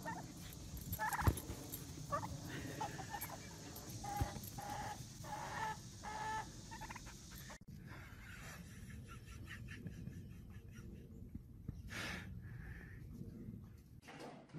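Tom turkey gobbling, a string of short calls in the first half. The sound then drops to a quieter stretch with one sharp click.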